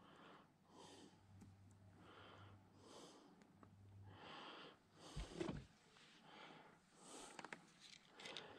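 Faint breathing close to the microphone, a breath about every second, from the person wearing the camera. About five seconds in there is a single soft thump, with a few small clicks near the end.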